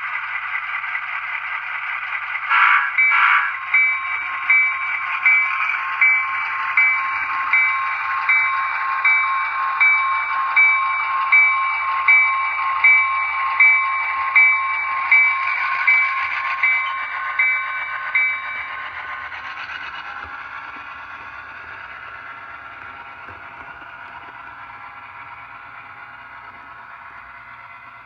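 HO scale F7 diesel locomotive model's sound decoder playing a diesel engine sound through its small on-board speaker, with two short blasts about three seconds in. A bell then rings about once every 0.7 seconds for some fifteen seconds. The engine sound fades as the locomotive runs away from the microphone.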